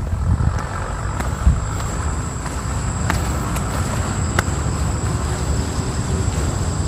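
Steady low outdoor rumble with a thin, continuous high-pitched insect drone over it.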